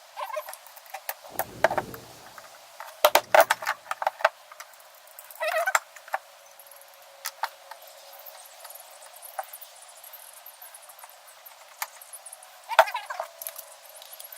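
Hand tools and metal parts clicking, clinking and knocking while a satellite LNB's aluminum housing is being taken apart, in scattered irregular sounds with a few sharper knocks.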